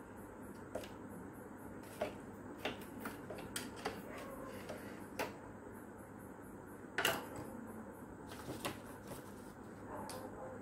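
Scattered light clicks and taps of the plastic housing and wiring of a rechargeable fan being handled, the loudest about two seconds in and about seven seconds in, over a steady low hiss.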